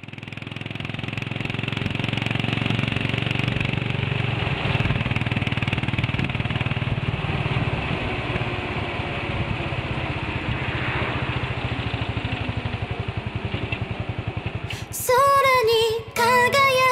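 Sidecar motorcycle engine running steadily at cruising speed with wind rush, fading in at the start. About fifteen seconds in, louder music with a synthetic singing voice comes in over it.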